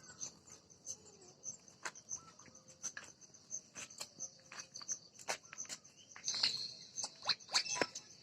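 Insects chirping in a steady, high-pitched, pulsing chorus, with scattered sharp clicks and knocks that are loudest near the end.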